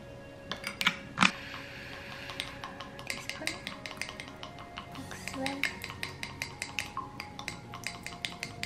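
A spoon stirring salad dressing in a small drinking glass, clinking quickly and steadily against the glass. There are a couple of louder knocks about a second in.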